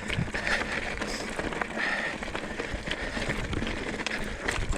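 Mountain bike rolling over a rocky gravel trail: tyres crunching and the bike rattling in a steady run of small clicks, with wind rumbling on the mic.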